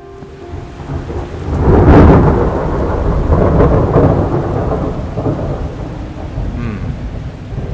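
Thunderstorm: a roll of thunder that swells to its loudest about two seconds in, over steady falling rain that carries on as the rumble slowly eases.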